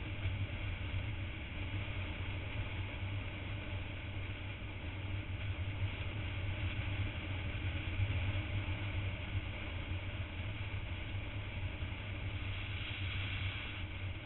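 Motorcycle engine running at a steady cruise, a low even drone under a constant rush of wind on the microphone.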